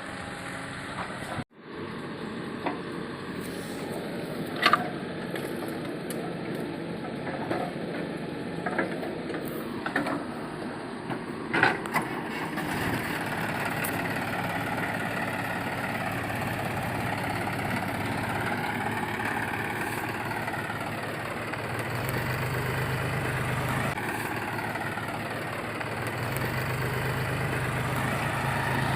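Heavy diesel machinery running steadily, with two sharp knocks in the first half. In the second half the engine note wavers up and down under load.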